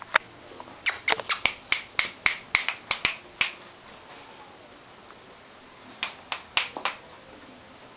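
A quick run of about a dozen sharp clicks over two and a half seconds. About three seconds later come four more clicks.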